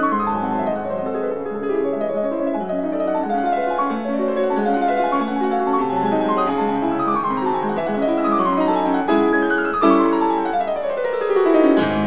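Lively piano music with busy, quickly changing notes. In the second half come several quick falling runs, the longest sweeping all the way down to a low note near the end.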